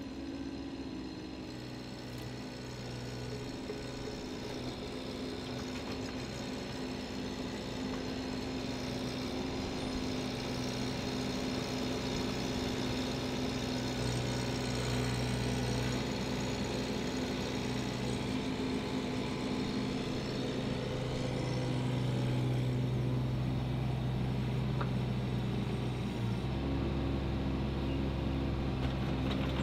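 Diesel engine of a Bobcat 319 mini excavator running steadily while the machine works a log grapple. The engine note changes near the end.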